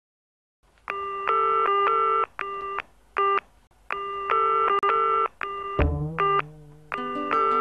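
Electronic music: a repeating riff of beeping tones that sound like telephone keypad tones, starting almost a second in, with a low bass line joining about six seconds in.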